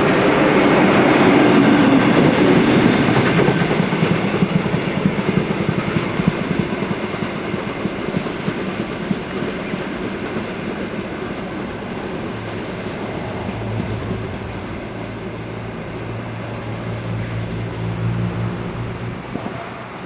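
Heritage passenger carriages of a steam excursion train rolling past at speed, their wheels clattering over the rail joints. The sound is loudest in the first few seconds and fades steadily as the train draws away.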